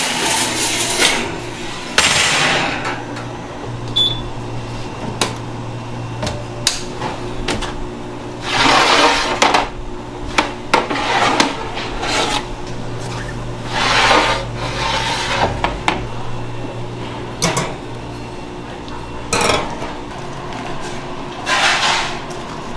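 Metal baking trays and stainless wire cooling racks clattering, knocking and scraping as they are handled, several sharp knocks and a few longer scrapes, over a steady low hum.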